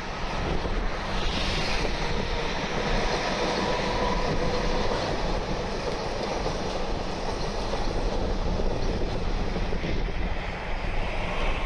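Metro Comeng electric suburban train passing close by, wheels running steadily over the rails, with a faint whine in the middle of its pass.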